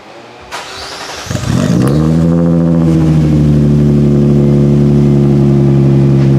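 Nissan Maxima V6 with a newly fitted Megan Racing cat-back exhaust cranked on the starter, catching a little over a second in with a short flare of revs, then settling into a steady idle through the new exhaust.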